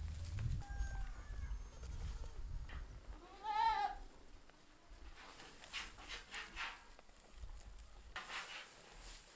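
A sheep bleats once, a high, quavering call about three and a half seconds in, and is followed by a run of short rustling, crunching sounds of the animals pulling at and chewing hay.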